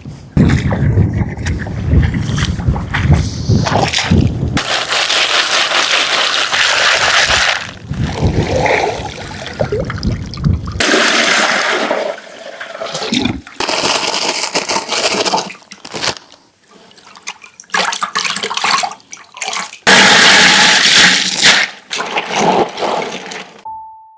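Water running and splashing, in several separate stretches of a few seconds each that start and stop abruptly.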